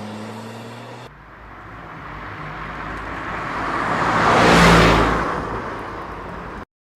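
An engine note fades in the first second. Then the rushing noise of a vehicle passing by swells to a peak about four seconds in and dies away.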